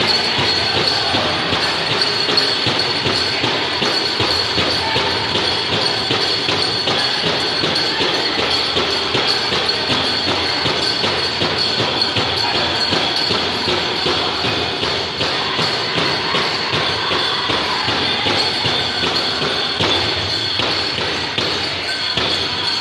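Powwow drum group playing a grass dance song: a steady, even beat on a big drum with the singers' voices, loud and reverberant in a large hall.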